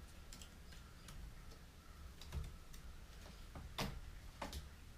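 Scattered light clicks and taps from kittens scrambling on wicker furniture and a wooden floor, the loudest a little under four seconds in.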